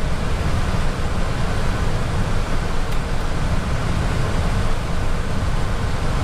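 Steady rush of Airbus A320 flight-deck noise in flight, airflow and air-conditioning, heaviest in the low end, with one faint tick about three seconds in.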